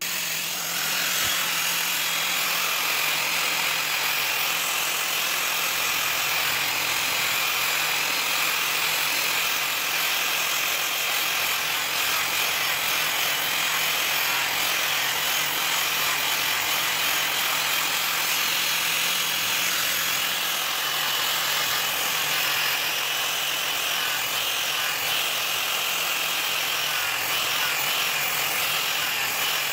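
Electric angle grinder running steadily, its pink abrasive disc pressed flat against a steel karambit blade to grind and sand the blade's face.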